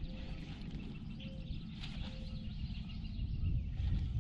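Low wind rumble on the microphone with faint bird chirps.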